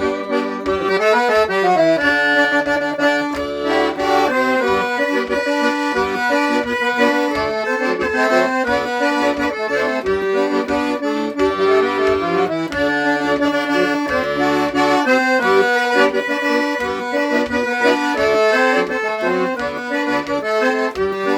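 Accordion (gaita) playing a lively instrumental melody over a pulsing bass rhythm in traditional gaúcho music, with no singing.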